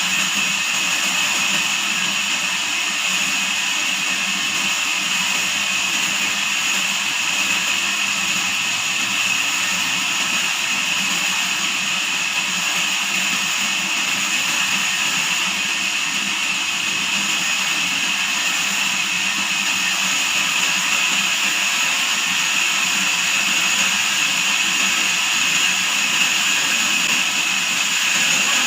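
Band sawmill running steadily, a loud, even high-pitched machine noise with no breaks.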